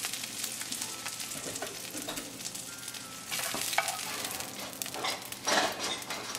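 Breaded fish fillets sizzling in shallow olive oil in a frying pan, a steady hiss, while a metal slotted turner scrapes under the fillets to lift them out, louder twice in the middle and later on.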